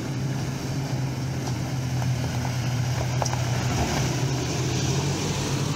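A Toyota Land Cruiser Prado's engine running steadily at low revs as it crawls up a rocky dirt track, with a few sharp clicks near the middle from the tyres rolling over loose stones.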